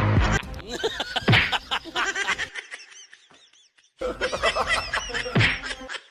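Laughter in short snickering, giggling bursts with pitches that jump up and down, broken by a lull of about a second and a half around the middle. A loud held sound cuts off just under half a second in.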